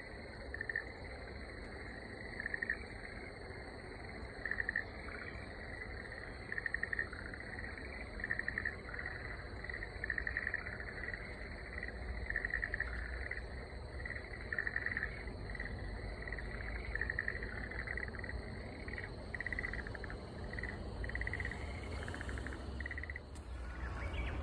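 Frogs croaking: short trilled calls repeated every second or two, over a faint steady high-pitched hum. Near the end a louder rushing noise comes in.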